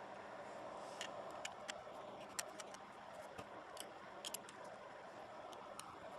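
Faint, irregular small clicks and ticks from a T3 Torx screwdriver working out tiny screws in a smartphone's plastic and metal housing, about a dozen light taps spread over several seconds.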